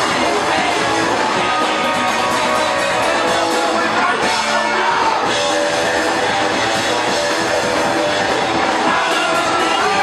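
A live punk rock band playing loudly: electric guitar, bass and drums, with a singer's voice over them.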